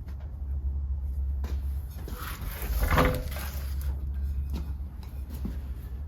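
Handling noise, with a scraping knock about three seconds in, over a steady low hum.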